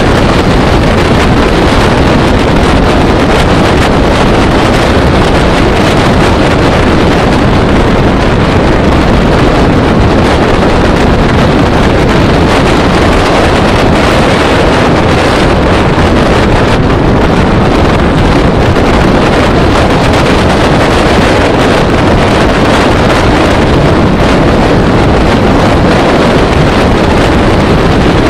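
Steady, loud rush of wind buffeting the microphone of a vehicle moving at road speed, mixed with road and engine noise.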